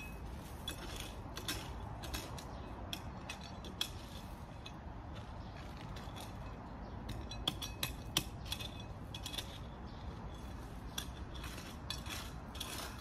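Small hand shovel digging a planting hole through white decorative stones into soil: irregular scrapes and clicks of metal on stone and grit, a few sharper clinks among them.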